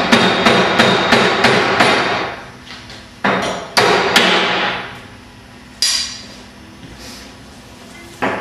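Hammer tapping: a quick run of about eight taps at roughly four a second, then a handful of single blows spaced out over the rest of the time.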